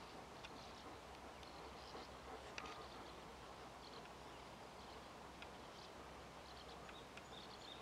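Faint, scattered short chirps of small birds over a quiet background hiss.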